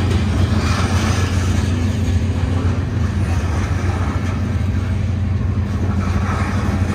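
Freight train of covered hopper cars rolling past over a level crossing: a steady rumble of wheels on rail over a steady low hum.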